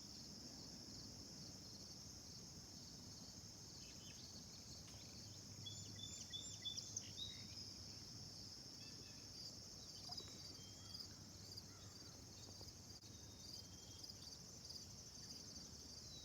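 Faint steady chorus of crickets, with a few brief higher chirps over it about six seconds in and again around ten seconds.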